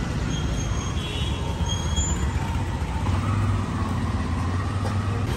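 City street traffic: motor vehicle engines running, a steady low hum that swells about three seconds in as an engine comes closer, with a few faint high squeaks in the first two seconds.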